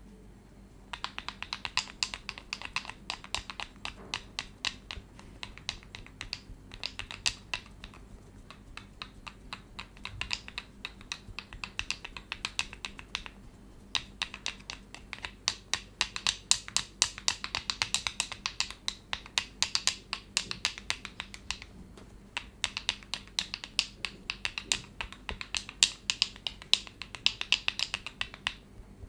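Hands working on a person's head in a head massage: rapid, crisp clicking and crackling in bursts of several seconds with short pauses between.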